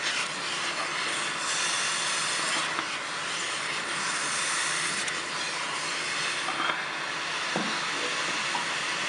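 Steady hiss from a pot of thick sadza (maize-meal porridge) cooking on a gas stove, with faint soft scrapes of a wooden spoon smoothing it.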